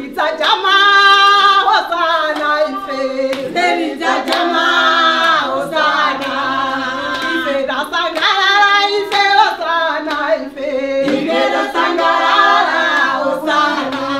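A group of women singing together unaccompanied in celebration, with high, sustained notes, while hands clap along.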